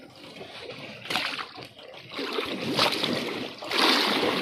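Seawater splashing and sloshing as a chunk of raw fish bait on a hook is jerked through the surface beside a boat's hull, in several surges: about a second in, again from about two to three seconds, and loudest near the end.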